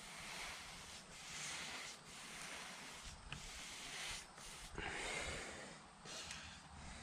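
Paint being spread on a garage door in repeated swishing strokes, roughly one a second.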